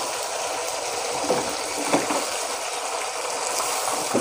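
Mutton pieces frying with a steady sizzle in hot oil in a kadhai as a wooden spatula stirs them, with a few scrapes and knocks of the spatula against the pan, the sharpest about two seconds in.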